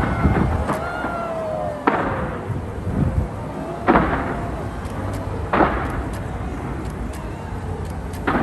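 Aerial fireworks bursting: four sharp bangs a couple of seconds apart, each trailing off in a short echo, the second one loudest, over a steady low rumble. A thin falling whistle sounds just before the first bang.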